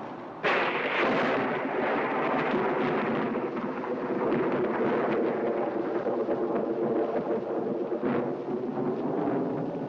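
A loud, rumbling soundtrack effect that sets in suddenly about half a second in and keeps going, with a few faint sustained tones beneath it.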